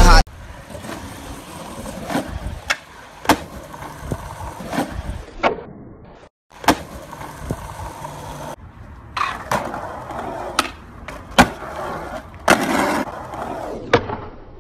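Skateboard wheels rolling on hard pavement, broken by about a dozen sharp cracks and clacks of the board striking the ground.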